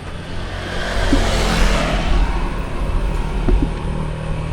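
A motor vehicle passing close by on the road, its engine and tyre noise swelling to a peak about a second and a half in and then fading, over a steady low engine hum.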